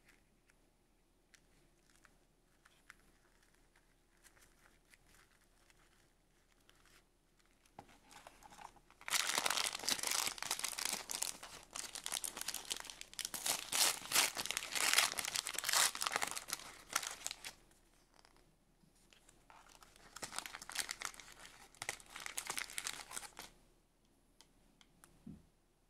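A crinkly red wrapper around a miniature toy crinkles as fingers work it open, in two long spells after a few faint clicks. A soft thump comes near the end.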